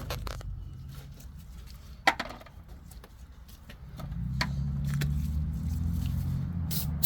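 A motor vehicle engine running with a steady low hum that grows louder about four seconds in, and a single sharp click about two seconds in.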